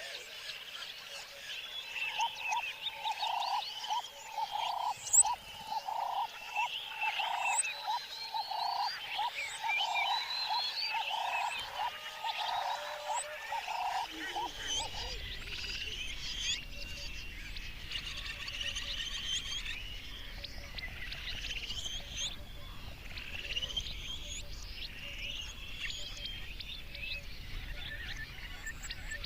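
Outdoor chorus of birds chirping and trilling, with a repeated low call about once a second through the first half that stops about halfway through; a steady low hum of background noise comes in at the same moment.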